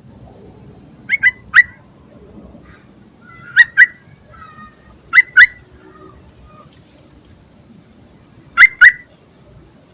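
Female yellow-vented bulbul (trucukan) calling to attract a male, a call used to lure birds. It gives four bursts of sharp chirps, mostly pairs and one of three, spaced one and a half to three seconds apart.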